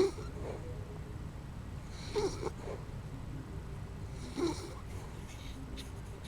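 A dachshund snoring in her sleep: three short snores about two seconds apart, over a low steady background rumble.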